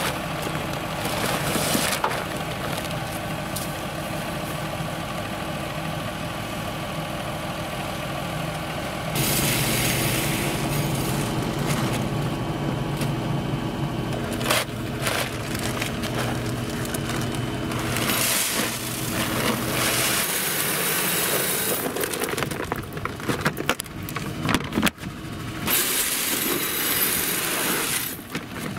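Fendt 720 Vario tractor's six-cylinder diesel idling steadily, a little louder from about a third of the way in. In the last part it gives way to the crinkle of a paper seed bag and the rush of maize seed being poured into the drill's hopper.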